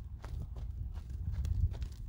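Horse's hoofbeats, a few soft clicks and thuds over a low rumble.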